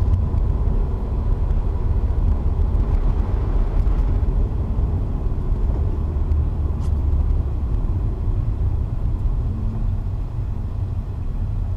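Steady low rumble of a 2017 Subaru BRZ driving on a snow-covered road, heard from inside the cabin: engine and tyre noise with no clear changes.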